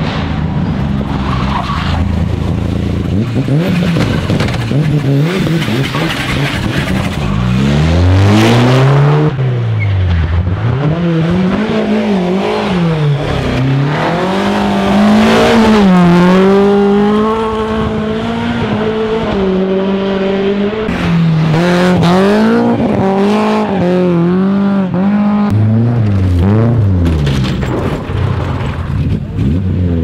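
Rally cars driven hard past the roadside one after another, their engines revving high and dropping again and again with gear changes and lifts off the throttle, with tyres skidding on loose gravel. Two louder passes come at about 8 and 16 seconds in.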